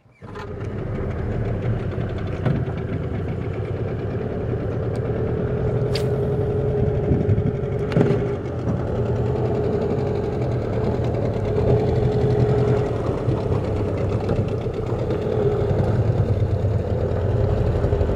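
A small boat's outboard motor running steadily as the boat moves along the water, a constant engine hum with a steady mid-pitched tone. A couple of faint clicks sound about six and eight seconds in.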